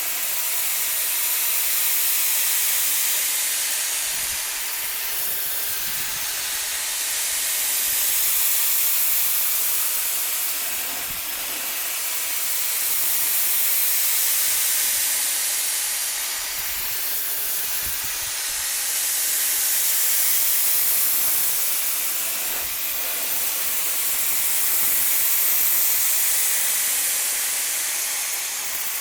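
Old-school compressed-air spray gun spraying primer in a continuous hiss that swells and eases about every six seconds.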